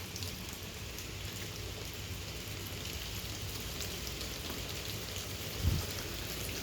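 Heavy rain pouring down steadily, with one brief low thump about five and a half seconds in.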